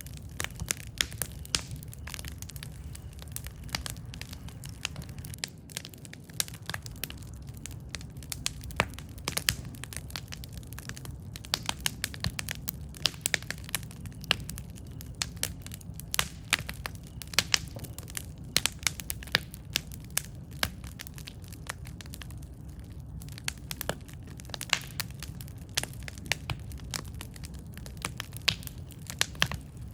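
Campfire crackling: a low steady rumble of burning wood with frequent irregular sharp pops and snaps, some much louder than the rest.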